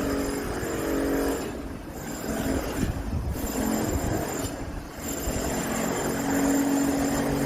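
Road vehicle engines running in city traffic: a steady engine hum with road noise that dips briefly about two seconds in and again near five seconds in.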